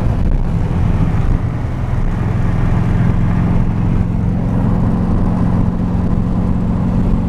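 Small car driving at a steady speed, heard from inside the cabin: a steady engine hum over tyre and road rumble.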